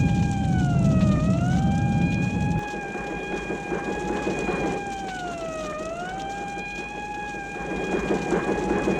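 Vintage library alarm siren holding a steady tone that sags in pitch twice, about four and a half seconds apart. A heavy low rumble runs under it and cuts off suddenly about two and a half seconds in, and a crackling patter builds near the end.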